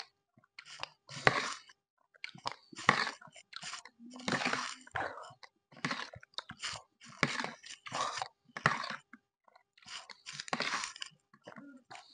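A metal spoon scooping and scraping through gelatin in a plastic bowl, mixed with close chewing and eating sounds. These come as a string of short, wet, noisy scrapes roughly once a second.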